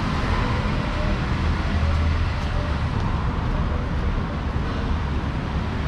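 Steady city road traffic: a continuous rumble of car and motor scooter engines passing on the street.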